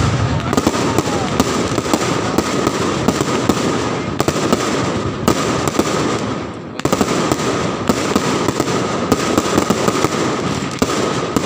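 Dense, continuous crackling and popping of fireworks and firecrackers going off in rapid volleys. A steady high tone runs underneath. The barrage dips briefly about six and a half seconds in, then resumes.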